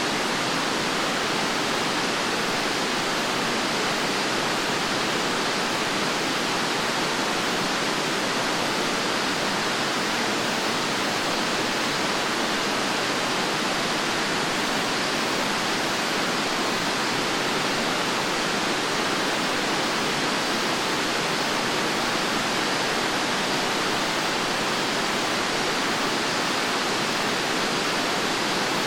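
Fukuroda Falls, a tall waterfall cascading over tiers of rock, giving a steady, even rush of falling water that does not change.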